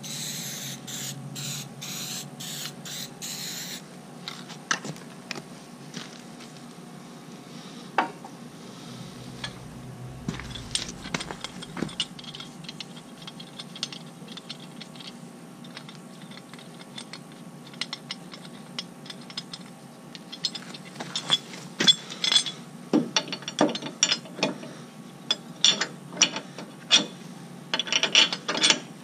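Aerosol spray can hissing in short bursts for about the first four seconds. Scattered sharp clicks and light metallic knocks follow, coming thicker and louder over the last eight seconds.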